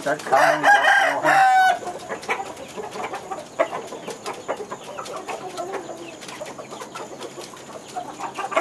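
A rooster crows once at the start, a loud call that breaks upward at the end. Scattered light clicks follow while the rooster runs in a wooden-spoked exercise wheel lined with chicken wire.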